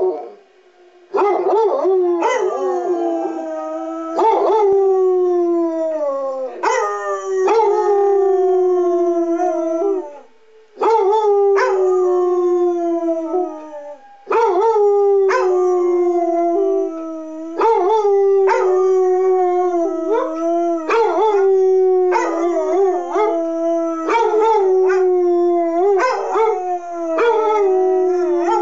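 Two basset hounds howling along with a rotating public-address warning siren. Their long, drawn-out howls slide down in pitch and follow one another with short breaks every few seconds, sometimes overlapping.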